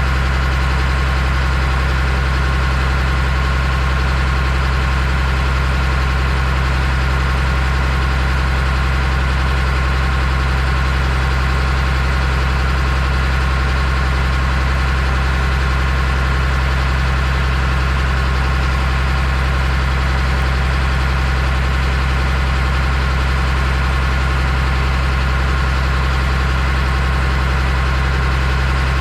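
An engine running steadily, a constant low hum that neither rises nor falls.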